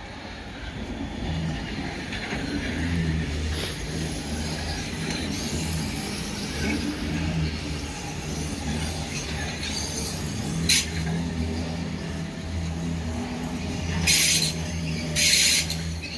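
Hamburg U-Bahn train running past at low speed: a steady low motor hum over wheel-on-rail noise, with a couple of sharp clicks and two short hissing bursts near the end.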